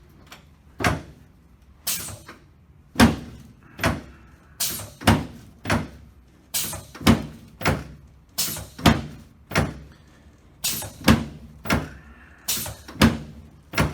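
A steady series of sharp knocks during a chiropractic adjustment session, often in quick twos or threes, about twenty in all, each with a short ringing tail.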